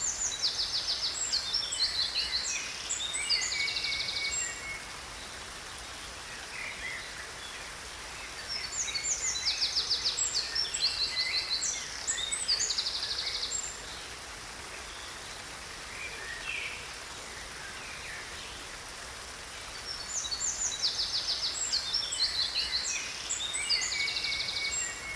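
A songbird singing three long phrases of chirps and fast trills, each lasting about four to five seconds and spaced several seconds apart, over the steady rush of a waterfall.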